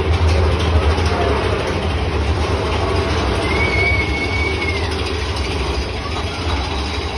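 Mine-train roller coaster car running along its track, a steady low rumble of the wheels. A high wheel squeal holds for about a second near the middle.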